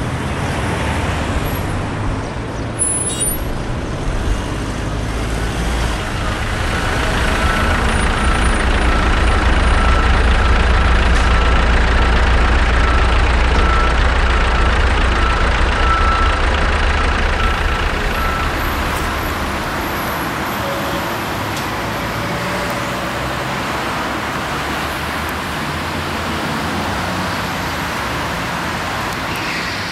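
Road traffic on a busy street. A heavy vehicle's deep engine rumble builds a few seconds in, holds, and fades away about two-thirds of the way through.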